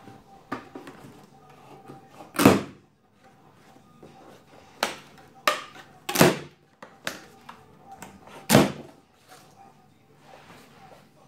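Black plastic packing straps on a cardboard box being cut with a knife: half a dozen sharp snaps and knocks, the loudest about two and a half seconds in and again past the middle, with cardboard and paper rustling between them.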